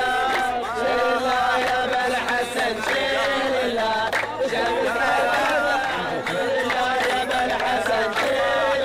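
Men singing a wedding procession chant together, with rhythmic hand clapping.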